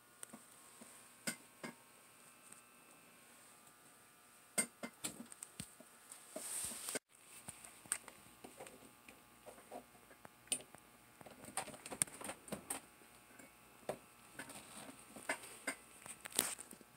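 Faint scattered clicks and rustles over a faint steady electrical hum from lit fluorescent fixtures and their ballasts. The sound drops out for an instant about seven seconds in.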